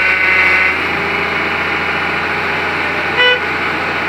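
Steady engine and machinery hum with a short vehicle horn toot about three seconds in. A higher, steady tone sounds through the first half-second or so.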